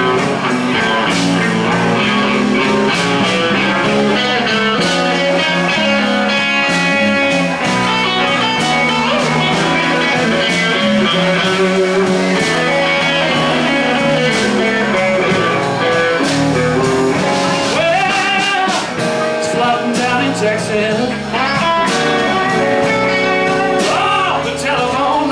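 Electric blues band playing a slow blues, with lead electric guitar over bass and drums.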